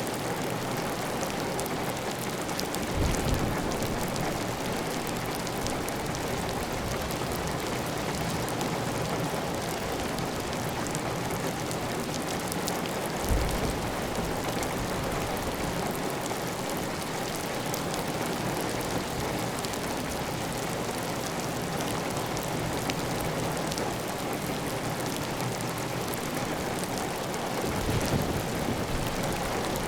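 Heavy, steady rain on a clay-tile roof, with water running off the roof edge. A few brief low thumps break through, about three seconds in, near the middle and near the end.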